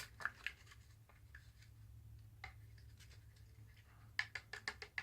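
Faint clicks and scrapes of a stirring stick against a container as paint is mixed into slime, with a quick run of clicks near the end.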